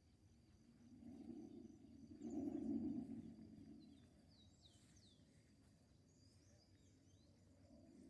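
Faint outdoor ambience: a low rumble swells and fades between about one and four seconds in, with a few soft bird chirps and a faint steady high insect-like tone.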